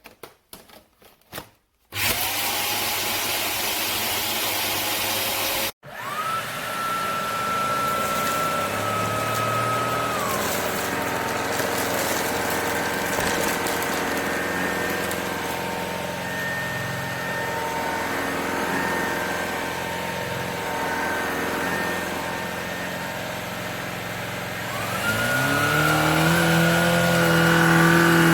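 Shark Detect Clean & Empty cordless stick vacuum: a few clicks, then a loud rushing noise for about four seconds that cuts off abruptly, then the vacuum's motor starts with a rising whine and runs steadily. About 25 seconds in it spins up to a higher, louder whine.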